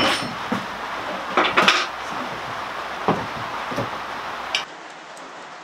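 Scattered light clinks and knocks of small hard objects being handled, over a steady hiss of rain on the roof. The hiss drops suddenly near the end.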